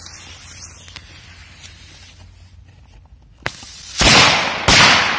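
Korsar 4 firecracker lit with a lighter, its fuse sizzling for about three seconds, then two loud bangs about 0.7 s apart as its two charges go off on the ice of a frozen puddle.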